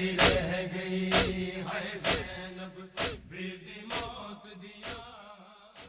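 A male noha chorus holds a low chanted note while seven sharp matam strikes (chest-beating) keep an even beat about once a second. The whole sound fades out toward the end as the noha closes.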